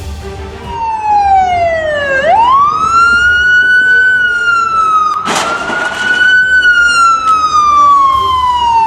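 Police siren wailing: its pitch falls, swoops back up about two seconds in, then slowly falls again. A rush of noise lasting about a second cuts across it just past the middle.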